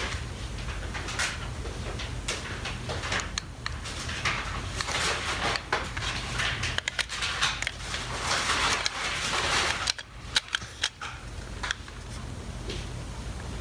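Hands working the plastic housing of a Panasonic electric shaver closed: irregular rustling and scraping of plastic parts, with a few short sharp clicks about ten seconds in. A steady low hum lies underneath.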